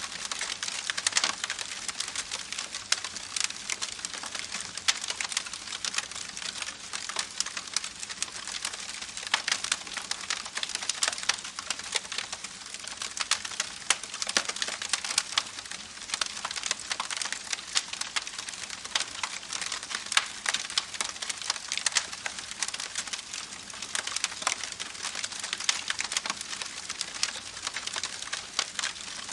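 Campfire crackling with many sharp pops and snaps, over the steady babble of a creek.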